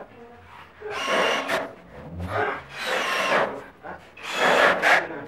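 Cordless drill-driver running in about four short bursts, driving screws into the galvanised steel studs and track of a drywall frame, each burst with a grinding rasp of the screw biting into the sheet metal.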